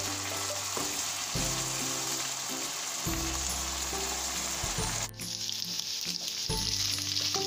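Boneless chicken pieces sizzling in oil in a non-stick pan as they are stirred with a wooden spoon. The chicken is frying until its released water dries off. The sizzle dips out briefly about five seconds in, then carries on.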